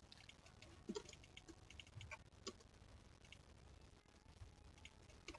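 Faint, scattered clicks of a computer mouse and keyboard keys against near silence.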